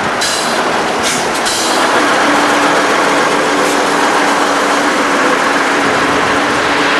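Diesel truck tractor unit driving past close by, its engine and tyre noise loudest about two seconds in, with a few short hisses in the first second and a half.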